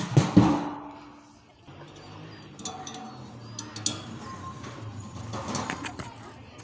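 Metal clatter and clinks as steel support struts and bolts are fitted to the rim of a four-foot satellite dish reflector: a loud clatter at the start, then a few sharp clinks.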